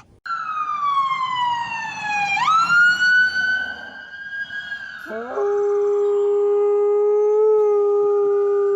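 A high wail that falls, swoops sharply back up and holds. From about five seconds in, a lower, steady dog howl joins it and is held for about four seconds.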